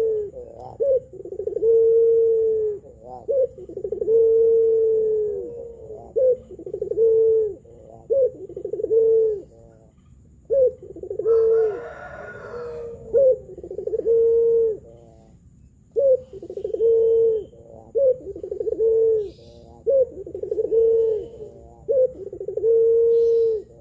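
Pelung-type ringneck dove (Barbary dove) cooing: a steady run of long, low coos, each about a second, with short gaps between them and a couple of longer pauses.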